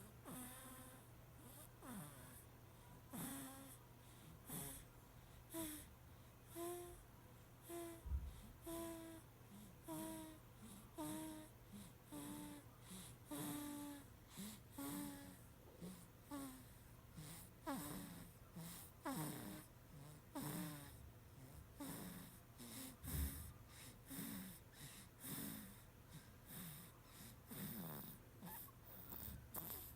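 A baby snoring in sleep: quick, short, faint breaths, roughly one a second, many with a squeaky whistling tone. A steady low hum runs underneath.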